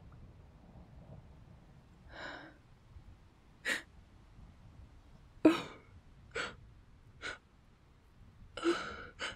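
A woman weeping: seven short, catching sobbing breaths, the loudest a little past the middle.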